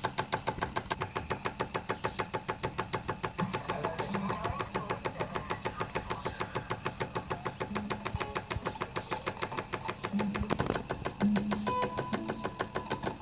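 Stuart S50 single-cylinder model steam engine running steadily under steam, its exhaust beating in a fast, even chuff.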